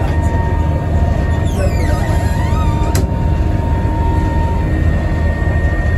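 Passenger train running, heard from inside its toilet cubicle: a steady low rumble with a constant whine, and a single sharp click about three seconds in.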